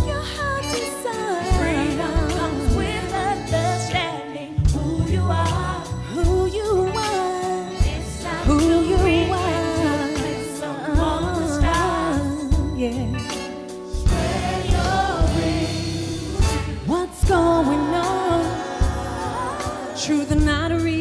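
Gospel vocal ensemble singing live with a band: sung melody lines over continuous bass and drums.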